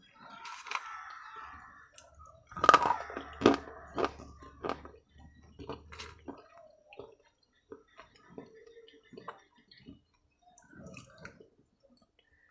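A person chewing and crunching food close to the microphone: irregular crisp crunches and mouth clicks, loudest about three seconds in, then fewer and softer.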